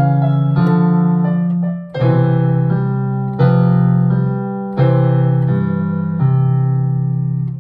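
Piano played four hands as a duet: a slow children's tune in full chords, a new chord struck every second or so and left to ring and fade.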